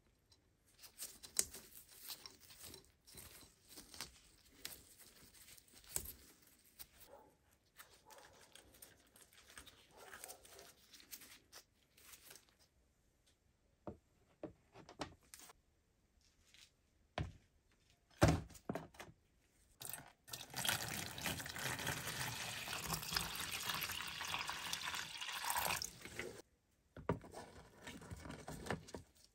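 Small clicks, scrapes and rustles as wire is twisted around a rusty horseshoe, then a few knocks. Past the middle comes about five seconds of liquid pouring into a clear plastic tub, followed by more handling sounds.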